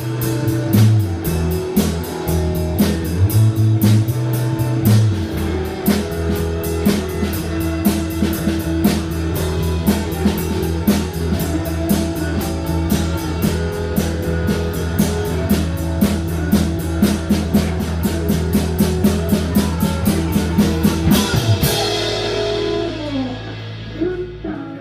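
Live rock band of electric guitars, bass guitar and drum kit playing a song with a steady beat. A little over 21 seconds in, the band ends on a final chord and cymbal crash that rings out and fades away.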